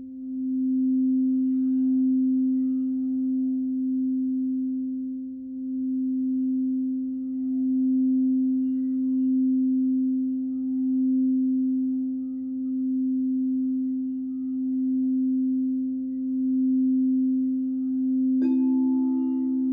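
Frosted quartz crystal singing bowl held in one steady low tone, played with a mallet worked around its rim, the sound swelling and easing in a slow, even pulse. Near the end a second bowl is struck and a higher note joins and rings on with it.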